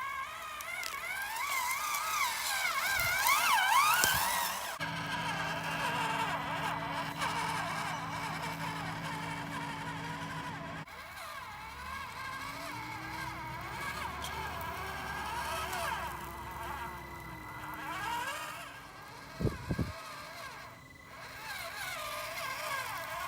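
Kyosho Mini-Z 4x4 micro RC crawler's small electric motor and gears whining, the pitch rising and falling as the throttle is worked. There is a short double knock near the end.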